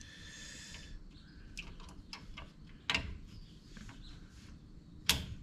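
Small clicks and taps of wire spade connectors being handled and pushed onto the terminals of a treadmill's replacement circuit breaker, with a louder click about three seconds in and a sharper one near the end.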